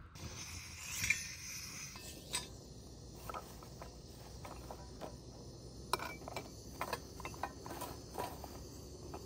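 Flat bread being handled on a metal grill over a portable gas-cylinder stove: scattered light clicks and taps over a faint steady hiss.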